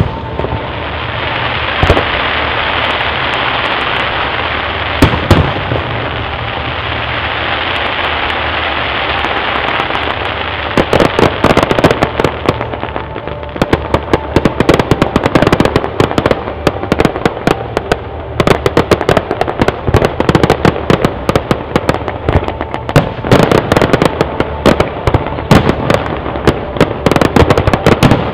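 Fireworks display: a few booming shell bursts over a steady hiss in the first ten seconds or so, then dense, rapid crackling and popping from crackle-effect shells.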